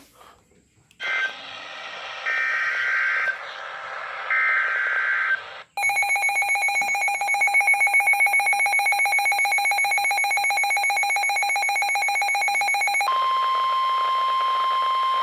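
Emergency Alert System alert tones on a radio broadcast. It opens with three short, harsh bursts of digital header data, about a second each. A steady two-tone attention signal follows for about seven seconds, then switches about thirteen seconds in to the single steady tone of the NOAA Weather Radio warning alarm, which introduces a severe thunderstorm warning.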